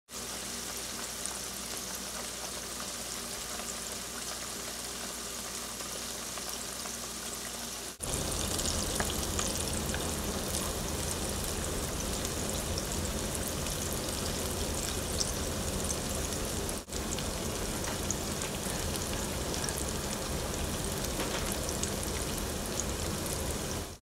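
Morel mushrooms frying in a pan: a steady sizzle dotted with small crackles. It gets louder, with a low rumble underneath, after a break about eight seconds in, and drops out briefly near seventeen seconds.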